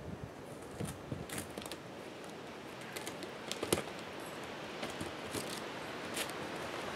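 Cardboard box flaps being handled and opened: scattered rustles, taps and scrapes, with a sharper tap a little past halfway, over a steady hiss.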